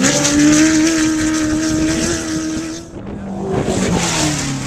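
Off-road race vehicle's engine revving up and held at high revs, then dropping off about three seconds in, with a lower engine sound following.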